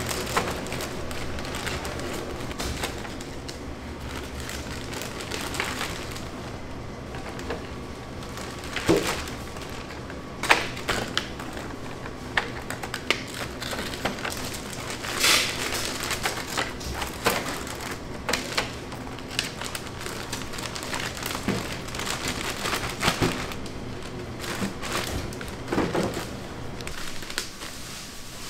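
Bakery work noise: scattered light taps, clicks and knocks of things being handled, over a steady low machine hum.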